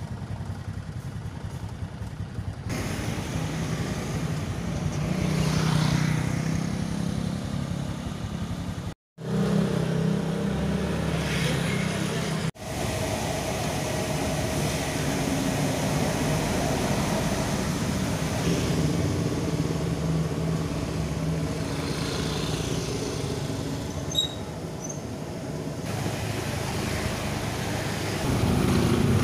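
Street traffic: motorbikes and cars running along a narrow residential street, with engine sound rising and fading as they pass. The sound drops out abruptly twice, about nine and twelve and a half seconds in.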